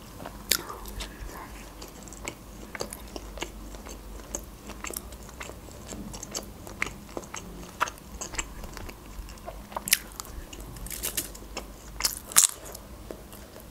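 Close-miked eating sounds: chewing of khachapuri bread crust with small wet mouth clicks, then a few louder crunchy bites into a fresh cucumber stick near the end.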